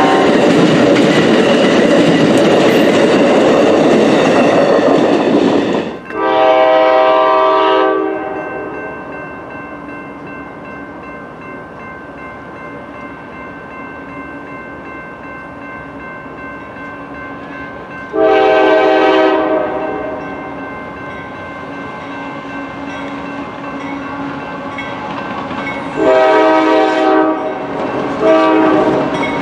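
A passenger train passing close by at speed: a loud rush of wheels on rail with a horn sounding, cut off about six seconds in. Then an approaching freight locomotive blows its air horn in repeated blasts: one long blast, another about ten seconds later, then a quick run of shorter blasts near the end, as a train sounds for a grade crossing.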